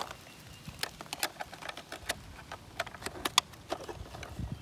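Light, irregular clicks and taps from hands handling a plastic battery-powered toy SUV and the batteries in its battery compartment.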